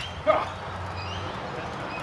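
Armoured heavy-combat sword sparring: a short, sharp sound from the fighters' exchange about a quarter second in, then faint bird chirps over a steady outdoor background.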